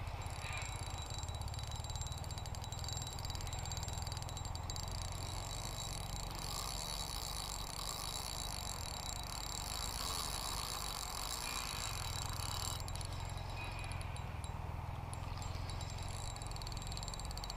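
Steady outdoor background noise: a low rumble with a high, rapidly pulsing chirr that grows louder through the middle.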